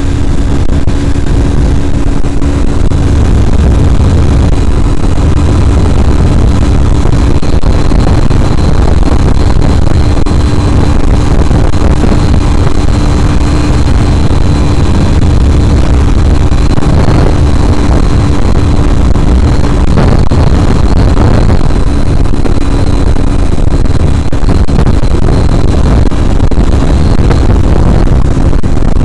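Yamaha Fazer 250's single-cylinder engine running steadily at high revs near its top speed, about 130–145 km/h, with heavy wind rush over the microphone.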